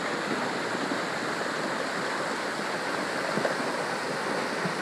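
Muddy flash-flood water rushing across flat ground, a steady, even rush.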